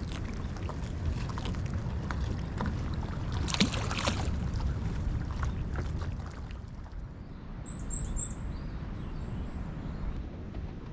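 Low wind rumble on the microphone with handling clicks, and a brief splash about three and a half seconds in as a small released horse mackerel drops back into the sea. From about eight seconds a bird gives a few short high chirps.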